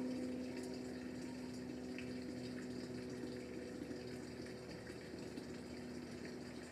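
A steady mechanical hum over an even rushing noise, with a few faint ticks.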